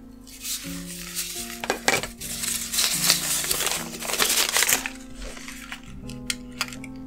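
Crumpled kraft packing paper being pulled out of a small metal tin and unfolded, crinkling loudest in the middle stretch, with a few light clicks, over quiet background music.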